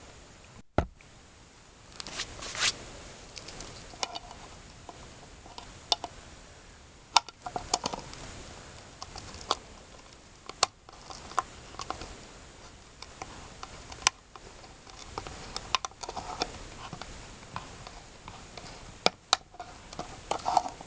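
Camp cook gear being handled: irregular sharp clicks, taps and short scrapes, a dozen or so spread out over the stretch.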